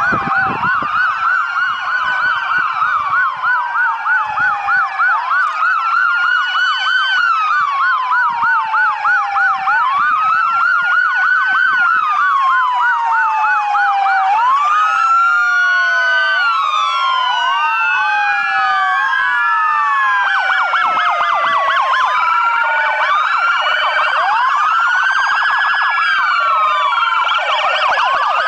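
Several police car sirens sounding at once from an approaching line of patrol cars. Slow rising-and-falling wails overlap a fast yelp, and more sirens join as the cars draw near.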